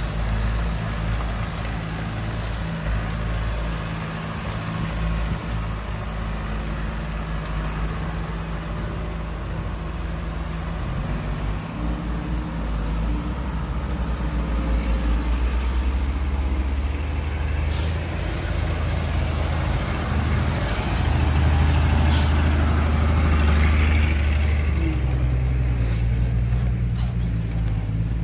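Heavy diesel engines of construction machinery running steadily, working harder and louder for a few seconds about three-quarters of the way through, with one sharp hiss or click at about 18 seconds.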